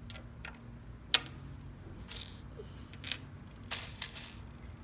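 Loose plastic Lego pieces clicking and clattering as a hand rummages through a pile of them, with a sharp click about a second in and a few more clicks near three to four seconds, over a faint steady hum.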